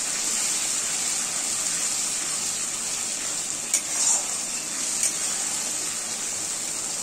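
Masala sizzling steadily in oil and water in a kadai while a metal spatula stirs it, as the spice paste is cooked down (bhuna). A few short scrapes and knocks of the spatula against the pan come around the middle.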